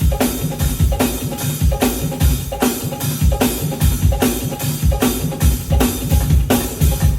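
Live drum kit playing a steady groove of kick drum, snare and cymbals, about two sharp hits a second, over a pitched backing part.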